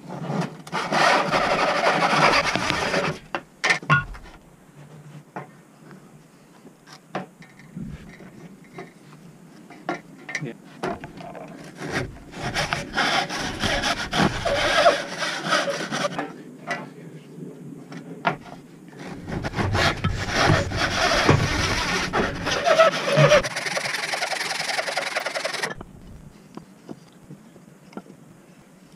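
Handsaw cutting through a softwood batten in three spells of back-and-forth strokes. Between the spells there are pauses with scattered light knocks of wood.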